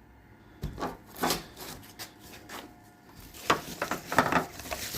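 Irregular scraping, rustling and sharp clicks of hands and a tool working at plastic trim on a car body, busiest near the end.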